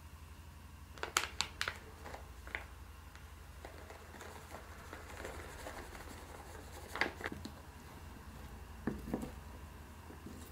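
Kitchen handling sounds while making corn pancake batter in a small pot. A few sharp clicks and taps come about a second in and again around seven seconds. In between, a packet crinkles as shredded mozzarella is tipped in. Near the end come soft knocks of a silicone spatula stirring the batter.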